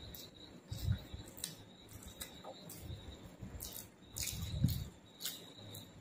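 Eating sounds close to the microphone: scattered wet clicks and smacks of chewing, and fingers mixing rice and curry on a plate. There are two soft low thumps, about a second in and at about four and a half seconds.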